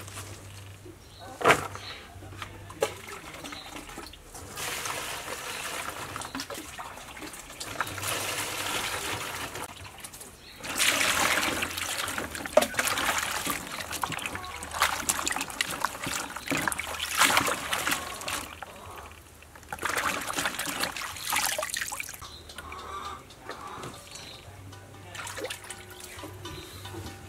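Hands swishing bunches of garlic flower stalks in a bowl of water to wash them: splashing and trickling in several spells of a few seconds each, with a couple of sharp knocks near the start.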